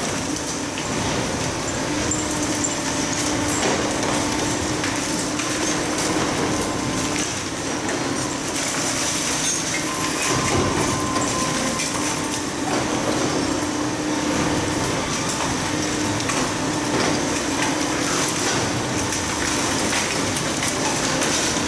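Demolition excavators, one a Kobelco, running steadily while a hydraulic crusher attachment breaks up a reinforced-concrete building, with a continuous engine hum and frequent small knocks and clatter of falling concrete debris.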